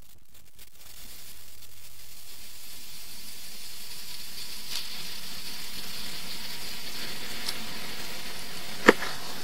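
Steady hiss that slowly grows louder, with a few faint ticks and one sharp click near the end.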